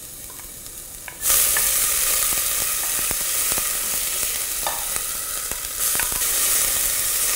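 Chopped garlic and banana peppers hitting hot oil in a stainless steel pressure cooker pot: the sizzle jumps up suddenly about a second in and grows louder again near six seconds as chopped onion goes in. A wooden spoon stirs and lightly taps the pot through the sizzle.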